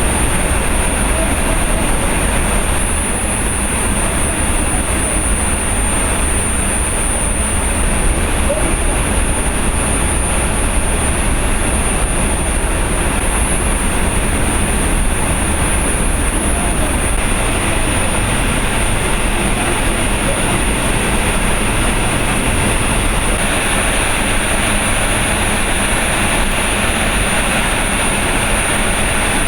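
Loud, steady industrial roar of steelworks plant machinery, with a thin, steady high-pitched whine over it.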